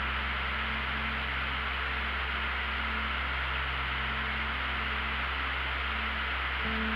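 Steady rushing noise of a light aircraft in flight, engine and airflow, under a sustained ambient music drone whose low notes shift near the end.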